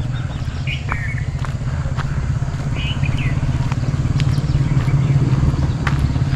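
Motorcycle engine running at low speed, a steady low pulsing rumble that grows a little louder, with a few short bird chirps over it.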